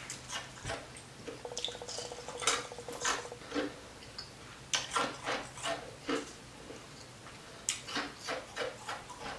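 Crushed ice being chewed: runs of sharp, crisp crunches in three bursts, with short pauses about four seconds in and again around seven seconds.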